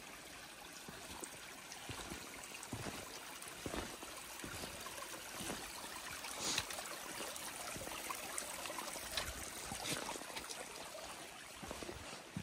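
Shallow stream water trickling and running over rocks, with a hiker's footsteps on wet stone and wooden steps now and then.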